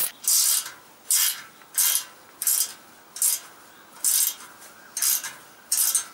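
A spanner turning the nut on a threaded-rod bearing press in short strokes, the nut and washer grating metal on metal, about eight strokes under a second apart. This is the press drawing a tapered roller bearing race into a motorcycle steering head.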